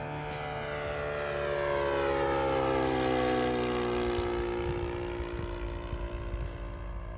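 A 1:6 scale F8F Bearcat RC model plane, powered by an O.S. GF40 four-stroke petrol engine, flies past. The engine note grows louder to a peak about three seconds in, then drops in pitch and fades as the plane passes.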